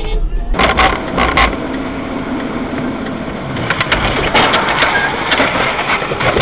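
Music cuts off about half a second in. A car dashcam's in-cabin audio follows: loud road noise with repeated clattering, crunching knocks, bunched about a second in and again through the last few seconds.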